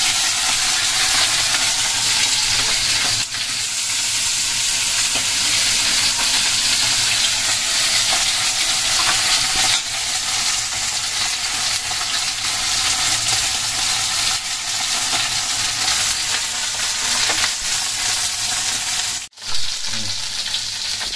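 Turmeric-coated fish shallow-frying in hot mustard oil in a steel kadai: a steady, continuous sizzle, broken off briefly near the end.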